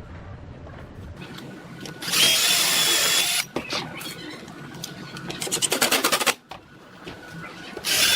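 Handheld electric power tool switched on in short bursts with a high whine: one burst of about a second and a half, then a rapid rattling run of strokes lasting about a second, then another burst starting near the end.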